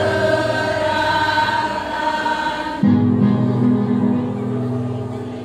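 Women's choir singing a march in sustained chords; about three seconds in they move to a lower held chord, which fades near the end.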